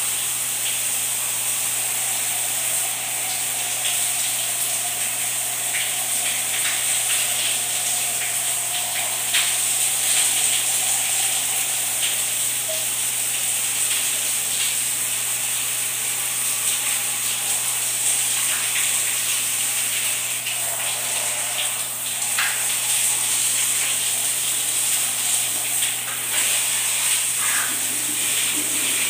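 Shower water running in a steady hiss, with faint scratchy scrubbing of a toothbrush over it.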